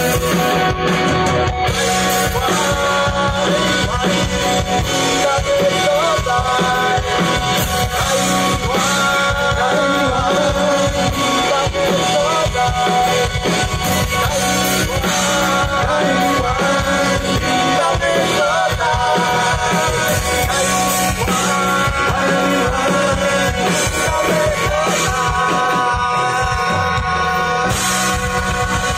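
Live rock band playing a song: electric guitars, acoustic guitar, bass and a drum kit keeping a steady beat.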